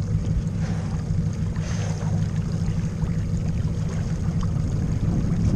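A steady low rumble of wind on the camera microphone aboard a small open boat.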